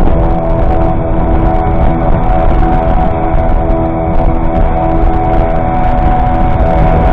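Two 15 hp outboard motors running steadily at half throttle, a continuous drone of several fixed tones, with music mixed over it.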